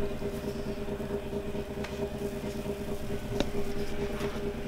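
Steady machine hum at a few fixed pitches, as from a running kitchen appliance, with a couple of faint clicks.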